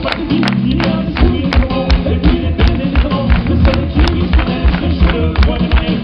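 A band playing fast, upbeat music live on an amplified stage, driven by a steady beat of about three strokes a second.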